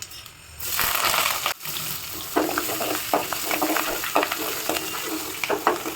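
Green chillies and curry leaves dropped into hot tempering oil: a loud burst of sizzle about half a second in, then steady frying with crackles and the sound of stirring in the pan.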